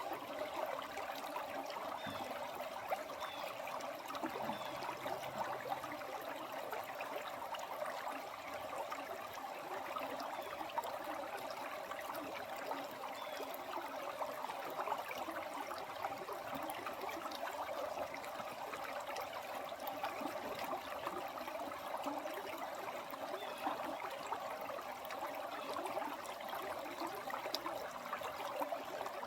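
Water flowing steadily, a continuous rushing sound with fine splashing in it.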